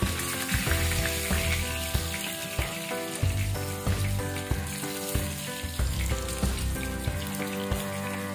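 Oil sizzling steadily as wonton-wrapper martabak fry in a pan and are turned with tongs. Background music with held notes and a bass line plays along.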